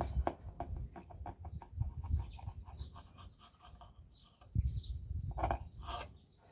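Chickens clucking, with a bird chirping, over a quick run of light clicks and taps in the first few seconds.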